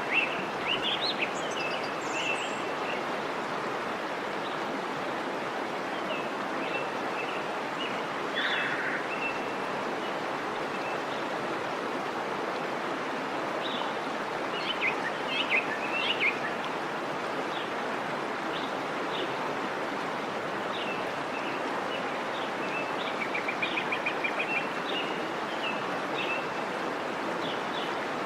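Steady rush of flowing stream water, with small birds chirping over it now and then, including a quick run of repeated notes near the end.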